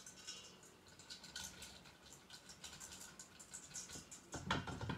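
Dry rice grains pattering and clicking into a metal bowl, with a louder rush of grains being handled in the bowl about four and a half seconds in.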